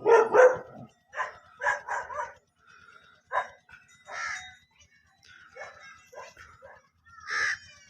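A dog barking and yapping: a quick pair of loud barks at the start, then a run of shorter, quieter barks and yelps at uneven spacing.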